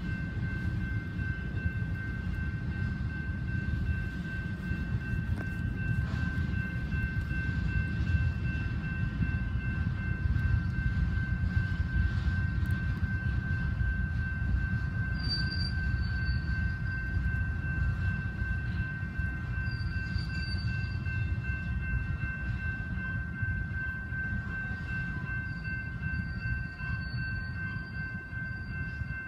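Union Pacific double-stack container freight train rolling past a grade crossing: a steady rumble of wheels on rail, heard from inside a car. A constant high ringing tone sits over it. Brief higher wheel squeals come about halfway through, again a few seconds later, and near the end.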